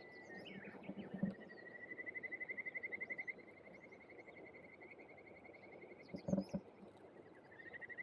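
A wild animal's call: a long trill of rapid, even-pitched high notes, which starts again near the end, over the steady rush of stream water. A couple of knocks come about six seconds in.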